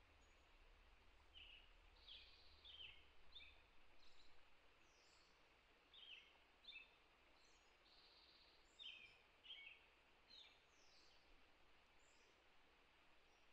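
Faint birdsong: small birds giving short, high, falling chirps, often in quick pairs, every second or so, over a quiet outdoor hush.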